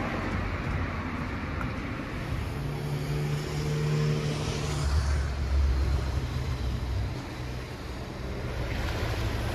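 A train's engine running with a steady low drone that shifts lower and louder about halfway through, then settles.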